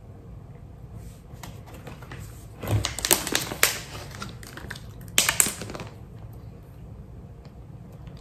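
Thin plastic water bottle crinkling and crackling as it is handled, in two bursts of quick clicks: one about three seconds in and a shorter one a little past five seconds.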